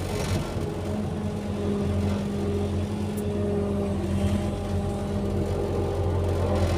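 Excavator's diesel engine running steadily under load, with a faint hydraulic whine over the engine hum.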